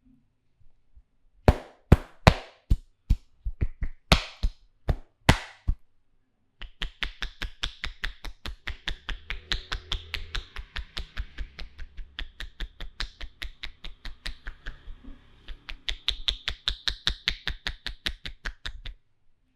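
Barber's hands striking a client's head during a head massage: a few sharp, loud slaps, then a fast, even run of hand taps, about five a second.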